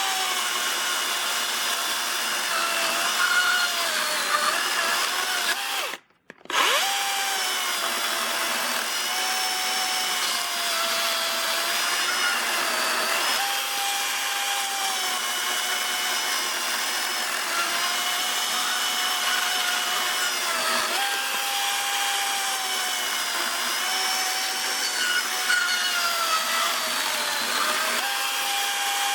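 Dewalt 60-volt FlexVolt battery chainsaw running and cutting wood: a high electric motor whine whose pitch sags repeatedly as the chain is loaded in the cut and climbs back as it frees up. It stops briefly about six seconds in, then starts again.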